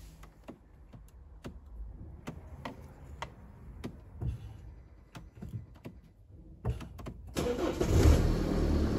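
A few scattered light clicks, then a BMW F10's engine cranks and starts a little past seven seconds in and settles into a steady idle: the newly programmed second key is accepted after the CAS4 module repair.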